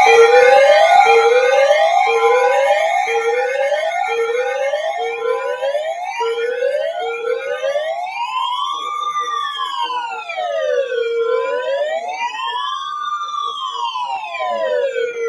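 Electronic siren sounding loudly: a quick run of short rising whoops, one about every 0.7 s, that changes about halfway into a slow wail rising and falling over about four seconds, with echoing copies of the sweep layered over it and a steady tone underneath early on.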